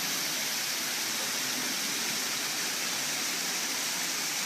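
Rebuilt rock waterfall spilling water into a swimming pool: a steady, even splashing rush.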